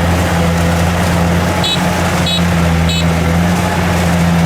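Kubota DC70 combine harvester's diesel engine running steadily under load. Three short high chirps sound about two seconds in, roughly half a second apart.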